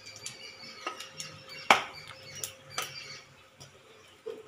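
Whole spices sizzling and crackling in hot oil in a steel kadai, with a few sharp clicks against the pan, the loudest about a second and a half in.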